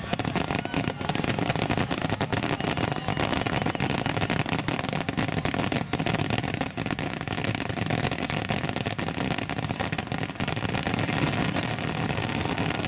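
Starmine rapid-fire fireworks: a dense, unbroken barrage of bangs and crackling pops from many gold bursts going off together.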